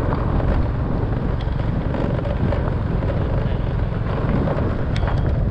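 Motorcycle riding along a dirt road: a steady rumble of the motorcycle's running and wind buffeting the microphone.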